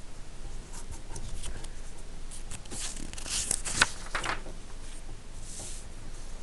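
Sheet of paper rustling as it is handled and turned over, with a sharp click nearly four seconds in and a short swish near the end.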